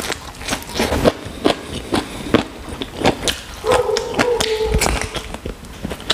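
Close-miked chewing and wet lip-smacking as mustard leaf and chicken curry with rice are eaten by hand, with many short mouth clicks. About four seconds in, a steady high whine holds for about a second.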